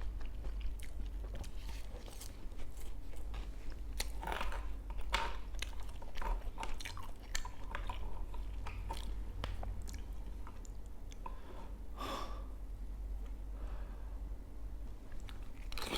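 A person chewing and biting food close to the microphone, with irregular sharp clicks and crunches and a few louder crackles.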